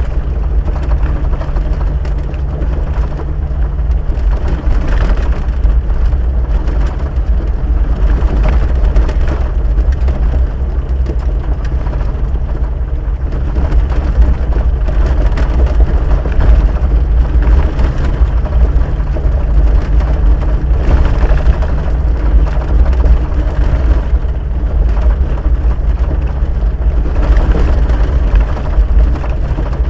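Off-road vehicle driving on a dirt road, heard from inside the cabin: a steady low engine note under the loud rumble of the tyres and body over the rough surface.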